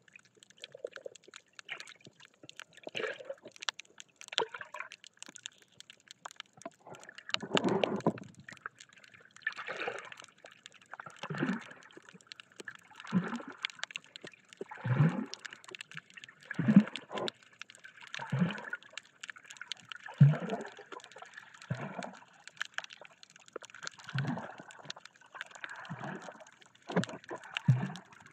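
Muffled water sloshing and swishing heard by an underwater camera, coming in rhythmic surges about every one and a half to two seconds as the snorkeler swims. The first few seconds are fainter and less regular.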